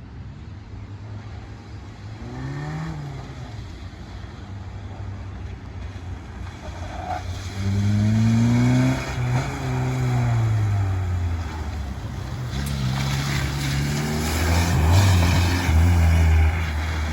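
Renault Twingo's engine revving as the car is driven past, its pitch rising and falling several times. It grows loud about halfway through and stays loud to the end.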